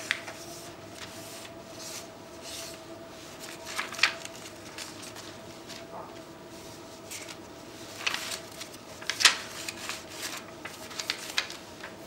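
Paper napkin wiping a keyboard's thin plastic membrane sheets dry, with scattered rustles and crinkles as the sheets are handled, the loudest cluster about eight to nine seconds in. A faint steady hum runs underneath.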